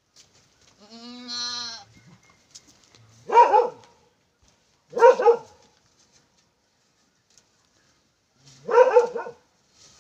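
Goat kid bleating: one softer call about a second in, then three loud bleats, each under a second.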